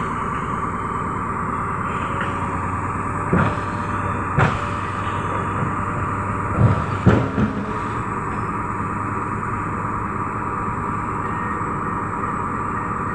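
Truck-mounted crane's engine running steadily with a constant whine, and a handful of short metal clanks and knocks, one a little after three seconds in, one near four and a half, and three close together around seven seconds in.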